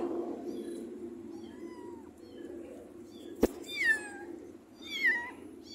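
Kitten mewing: a series of short, high-pitched falling mews, the loudest two about two-thirds of the way in and near the end. A single sharp knock comes a little past the middle.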